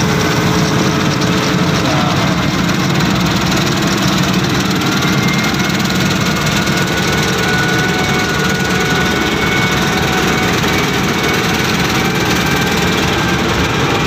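New Holland combine harvester running steadily while harvesting rice, heard from inside the cab: a loud, even engine and machinery drone with faint high whines from the drives.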